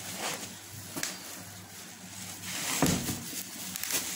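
Bubble wrap crinkling and cardboard rustling as a wrapped pan is handled in its box, with one louder knock about three seconds in.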